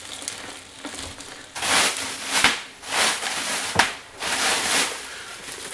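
A plastic bag of ice being opened and handled: crinkling plastic and ice cubes knocking and shifting inside it. There are several noisy bursts, a couple of them sharp, starting about a second and a half in.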